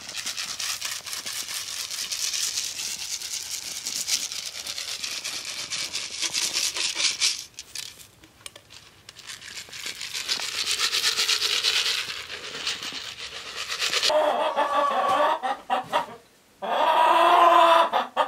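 Hot ashes with glowing embers tipped from a pail onto snow: a crackly rush of noise in two pours, the first about seven seconds long and the second shorter. Hens clucking near the end.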